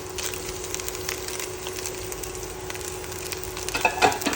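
Stir-fry ingredients sizzling in a hot pan with scattered crackles and pops, then a few louder clatters and scrapes of the cooking utensil against the pan near the end.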